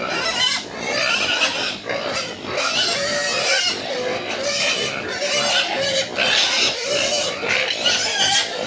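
Several pigs squealing loudly and without pause, many overlapping cries: hungry pigs clamouring at feeding time.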